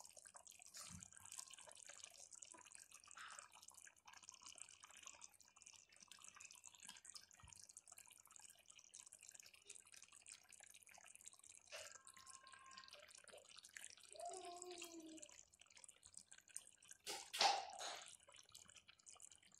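Faint bubbling and popping of thick chicken curry gravy simmering in the pot, with a brief louder noise near the end.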